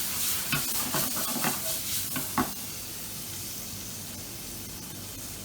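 Chicken and white wine sizzling in a hot pan as the alcohol cooks off. A utensil stirs and taps against the pan in the first couple of seconds, then the sizzle goes on steadily on its own.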